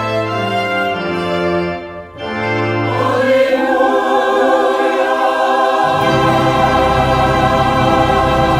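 A choir singing a hymn with organ accompaniment, with a short break between phrases about two seconds in.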